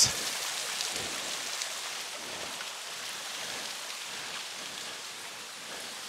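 Thin, low-flow waterfall spilling down a layered rock face and splashing onto wet rock ledges: a steady, even hiss of falling water.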